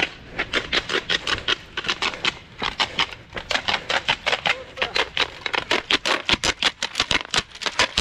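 Rapid, irregular cracking clacks from spectators' triquitraque noisemakers, made to cheer the runners on, coming thicker and faster toward the end.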